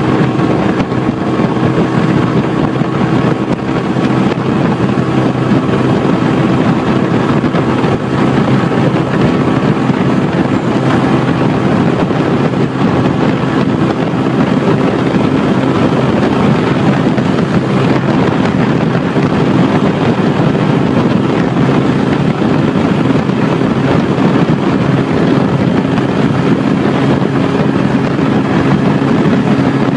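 Bajaj Boxer BM 125 X motorcycle riding at a steady speed, its small single-cylinder engine running evenly under wind rushing over the microphone.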